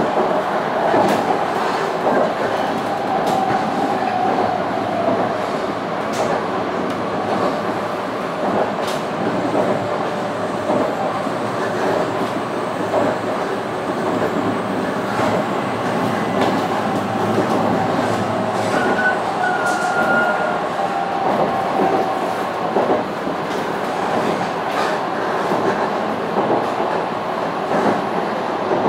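Tokaido Shinkansen train heard from inside the passenger car while running: a steady rumble and hiss of wheels and running gear on the track, with occasional light clicks.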